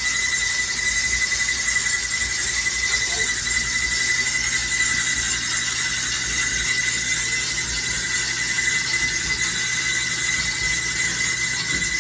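Clothes dryer running with a loud, steady high-pitched squeal over a low hum.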